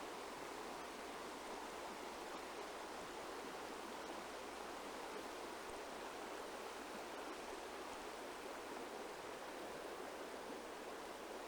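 Water in a stream rushing steadily.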